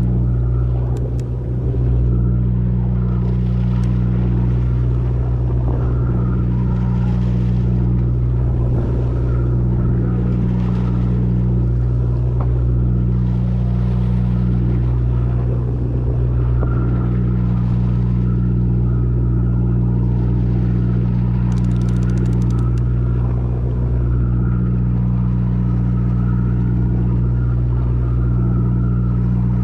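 Steady drone of a fishing boat's engine running at a constant speed while underway, a deep even hum.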